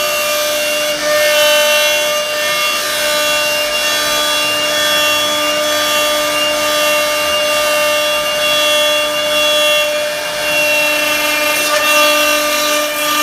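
CNC wood router running steadily, its spindle holding a constant whine while the bit cuts wood with a rough, noisy rasp.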